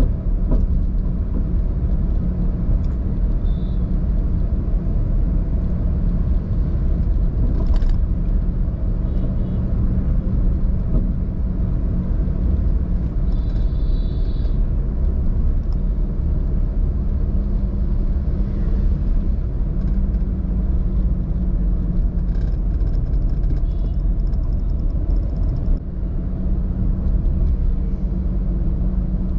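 Steady low rumble of a car driving on the road, engine and tyre noise, with brief high-pitched tones a few times, the longest about halfway through.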